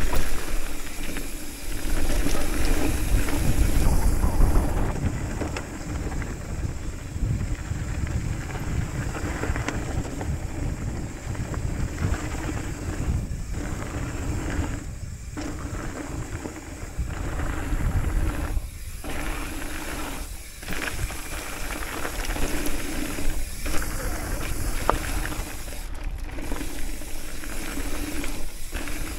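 Haro hardtail mountain bike rolling fast down a loose dirt-and-gravel trail: tyres crunching over rock and the bike rattling, with wind buffeting the microphone. The noise dips briefly several times.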